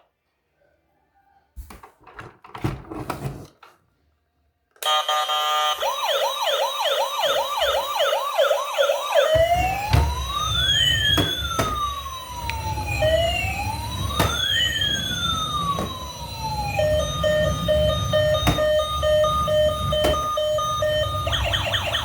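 Electronic siren sound effect from a battery-powered toy emergency vehicle, starting about five seconds in after a few faint clicks. It cycles through a fast warbling yelp, then two slow rising-and-falling wails, then a pulsing beep-like tone, and returns to the fast yelp near the end, over a low rumble.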